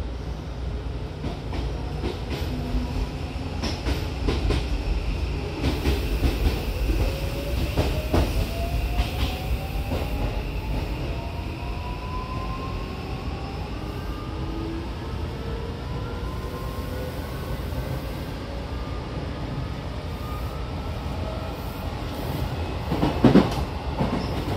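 Odakyu 5000 series electric train heard inside the passenger car, pulling away and accelerating. The traction motor whine rises steadily in pitch over the running rumble, with wheel and rail clatter, loudest near the end.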